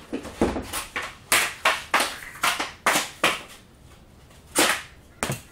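Street-hockey stick knocking the puck against pavement in a quick series of sharp taps, two or three a second, as it is stickhandled. The taps stop about three and a half seconds in, then two more come near the end.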